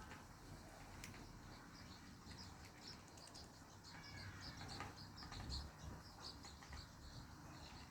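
Faint chirping of small birds, a quick run of short high notes, with a couple of brief clicks.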